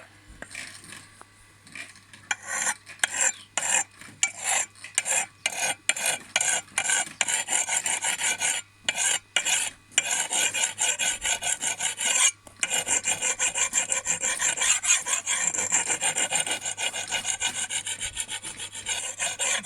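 A hand-held canoe sharpening stone scraping along the curved edge of a steel billhook. There are separate strokes with short gaps at first, then from about twelve seconds in a fast run of quick back-and-forth strokes.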